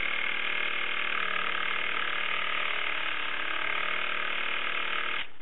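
Mamod Minor 1 model steam engine, a small oscillating-cylinder engine, running fast on compressed air with a steady, high-pitched buzz. The sound stops suddenly near the end.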